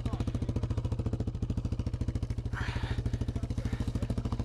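Quad bike engine idling steadily with an even, rapid beat.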